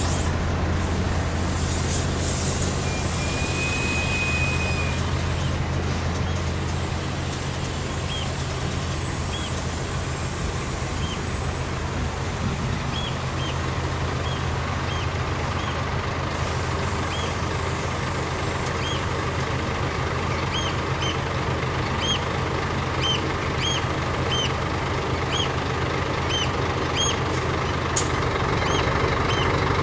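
Heavy diesel trucks idling in a queue with a steady low engine hum, with a burst of air-brake hiss at the start. A short beep comes about three seconds in, and short high chirps repeat through the second half.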